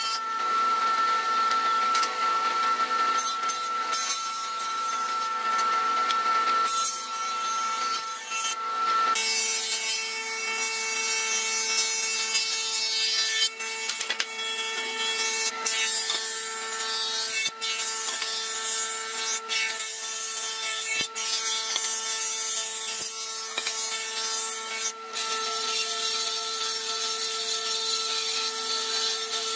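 Combination jointer-planer running with a steady motor and cutterhead whine while pine boards are fed across the knives, the wood hissing as it is planed. The whine changes pitch about nine seconds in, and the sound breaks off briefly several times.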